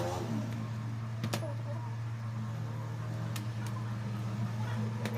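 A steady low mechanical hum, with a few sharp clicks: one just over a second in, two a little past three seconds, and one near the end.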